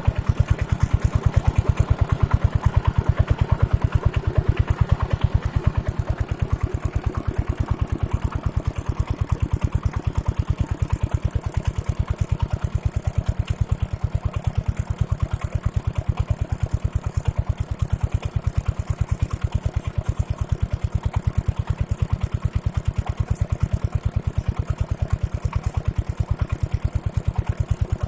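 A large, old water-pump engine, brought back to working order, running steadily with an even, closely spaced beat.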